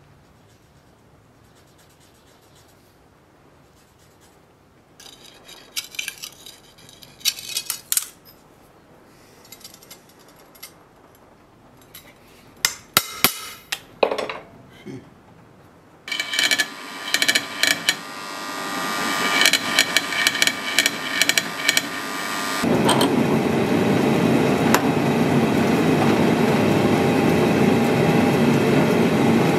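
Workshop sounds: scattered knocks and clinks of tools and metal being handled, then a machine starting up with a rattling hiss that settles into a loud, steady run over the last third.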